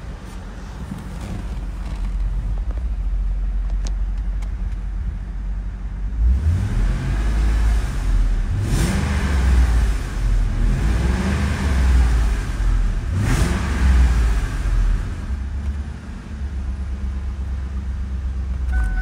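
1998 Lincoln Mark VIII's 4.6-litre 32-valve V8 running, heard from inside the car. It idles steadily, is revved up and back down three times from about six seconds in, then settles back to a steady run.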